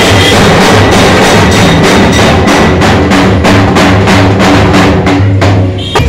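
A Bombay Nasik dhol drum band with manjira hand cymbals playing a fast, steady, very loud beat. The drumming stops just before the end.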